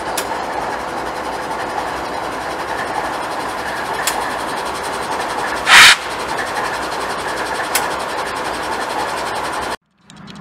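BNSF GE ES44C4 and Norfolk Southern freight locomotives rolling past close by: a steady rumble and rattle of wheels on the rails, with a few clicks and one loud bang about six seconds in. The sound cuts off suddenly near the end.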